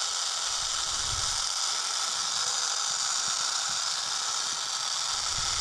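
Lead shot pouring from a cloth bag through a plastic funnel into the hollow head of a Lixie dead blow hammer: a steady, even hiss of the small pellets streaming down.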